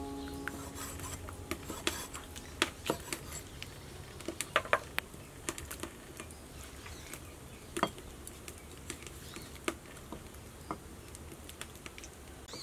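Cleaver slicing squid on a wooden cutting board: irregular knocks of the blade striking the board, some with a short ringing, a few closer together around the middle.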